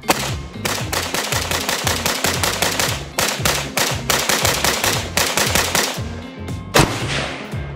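AK-pattern rifle firing in rapid strings of shots, with short breaks about half a second and three seconds in. Near the end comes one louder single shot with a long echo. Background music with a steady bass line plays underneath.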